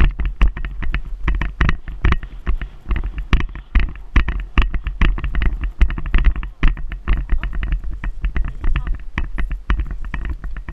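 Icelandic horse moving fast on a sandy trail: rapid, uneven hoof strikes and knocks, with wind rumbling on the microphone throughout.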